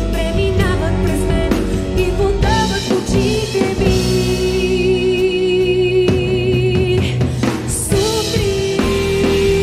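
Live band music with a drum kit playing, under a lead melody line that holds long notes with vibrato and slides into a new note a few times.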